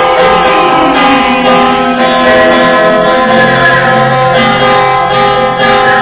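Background music with many held notes layered over each other.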